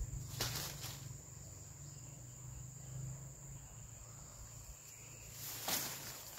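Insects, such as crickets, chirping steadily at one high pitch over a faint low hum. A few soft clicks come in the first second and a brief rustle near the end.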